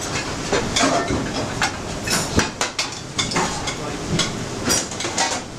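Busy restaurant kitchen during service: steel pots, pans and utensils clinking and knocking many times over a steady background hiss.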